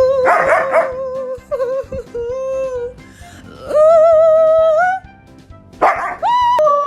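A dog howling in a series of long held notes, several in a row, with rough yelps breaking in near the start and again near the end.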